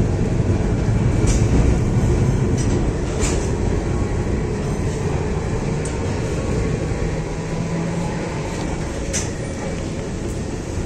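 Old tram running, heard from inside the car: a steady low rumble with a few sharp clicks and knocks.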